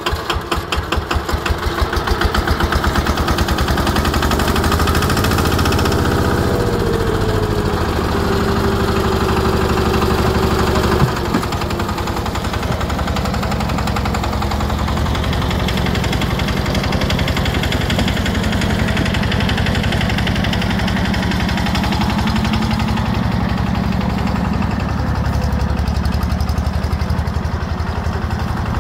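Small compact tractor's diesel engine, running uncovered with its hood off: its beat quickens and grows louder in the first couple of seconds, then it runs steadily as the tractor drives. A single sharp clunk sounds about eleven seconds in.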